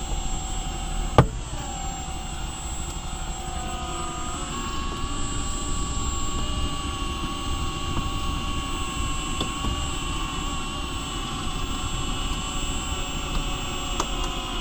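Cordless drill turning a windshield wire cut-out winder, reeling the cutting wire through the old glass's urethane: a steady motor whine with a sharp click about a second in, after which the pitch sags, then steps up a few seconds later.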